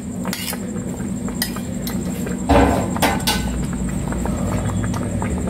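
A few light clinks of a metal utensil against a steel cooking pan over a steady low hum, with a louder dull knock and rumble about two and a half seconds in.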